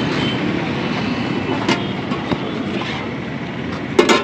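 Street traffic: vehicle engines running steadily, with a few sharp clicks and a short loud sound about four seconds in.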